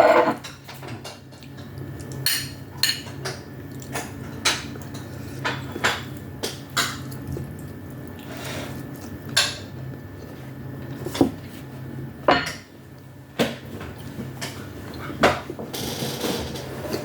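A spoon clinking against a bowl while soup is eaten, in irregular short clinks about a second apart, over a steady low hum.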